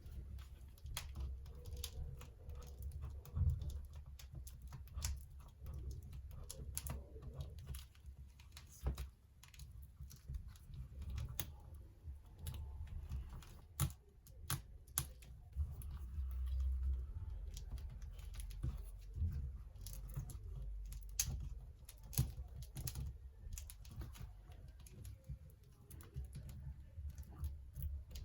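Irregular light clicks and taps of hands and a small tool working on a laptop's plastic screen assembly while the LCD panel is freed from the lid, over a low rumble of handling.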